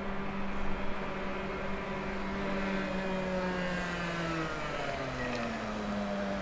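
A vehicle's motor hum, a steady sound of several tones whose pitch drops about four and a half seconds in.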